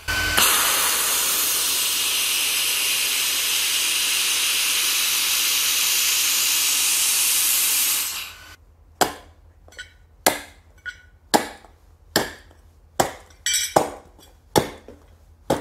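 xTool MetalFab handheld laser welder welding 12 gauge mild steel: a steady hiss for about eight seconds that stops sharply. Then about ten sharp stomps, roughly one a second, as a shoe stomps on the welded steel joint to test the weld.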